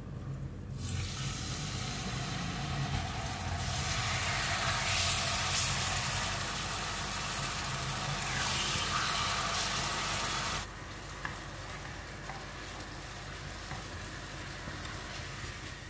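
Marinated pork pieces sizzling in hot oil in a nonstick pan. The sizzle starts about a second in, is loudest through the middle, and settles to a quieter sizzle about two-thirds of the way through, over a steady low hum.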